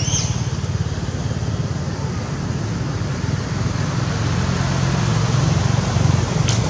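Steady low rumbling background noise, with a short high rising chirp right at the start and a brief sharp tick near the end.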